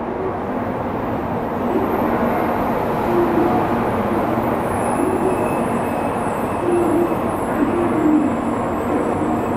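Series 700 Shinkansen bullet train running into the station: a steady rumble of wheels on rail, with faint wavering tones over it.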